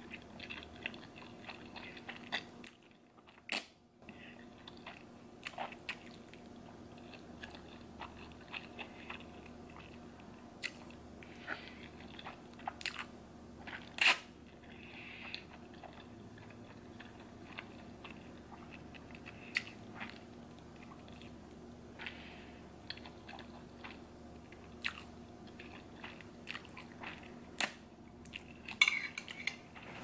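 Close-up eating sounds of black bean noodles (jjajangmyeon): slurping and wet chewing, broken by scattered sharp mouth clicks, with the loudest click about halfway through.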